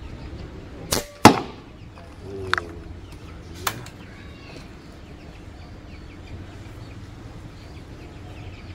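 Evanix Vortex .177 PCP air rifle firing a single shot, a sharp crack about a second in, with a shorter click just before it. Two fainter clicks follow a second or two later.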